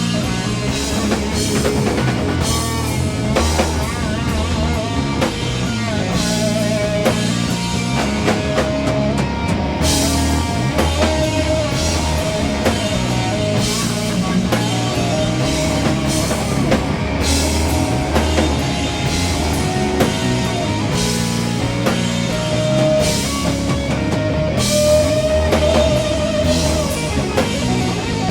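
Instrumental break of a doom metal band: distorted electric guitars and bass over a drum kit with cymbal crashes. A lead line plays long held notes with vibrato.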